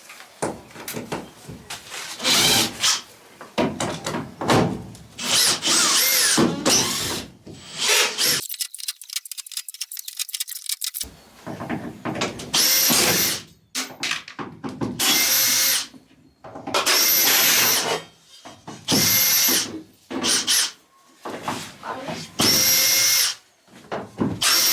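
Power drill-driver running in repeated short bursts of about a second each, some with changing speed, backing out screws while wall panelling is stripped off. A stretch of rapid, even clicking comes about a third of the way in.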